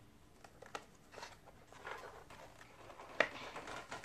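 Plastic parts of a Play-Doh Ultimate Swirl Ice Cream Maker being handled, with a few light clicks and taps and soft rustling. The sharpest click comes about three seconds in.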